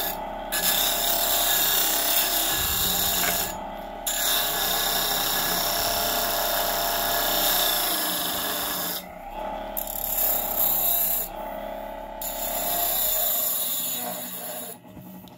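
Mastercraft 6-inch variable-speed bench grinder with a 2.5 A induction motor, running on its low setting of about 2,000 RPM, with a piece of wood pressed against the spinning wheel. The grinding hiss breaks off four times as the wood is lifted away, while the motor's steady whine carries on underneath, and the sound fades near the end.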